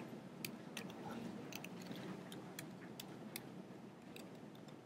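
Faint, irregular clicks of computer keyboard keys being typed, about a dozen over the few seconds, over low room hiss.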